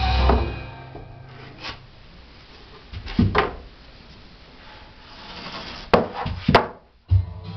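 Wooden slats knocking and rubbing against each other as they are picked up and handled, with two sharp clacks near the end.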